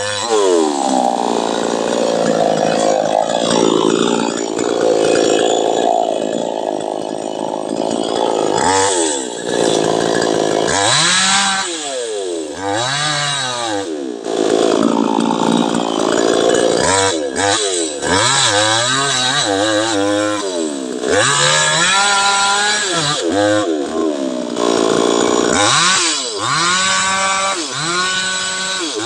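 Petrol chainsaw cutting branches. It is held at high revs for the first several seconds, then revved up and down over and over, rising and falling in pitch, with brief steady high-rev stretches near the end.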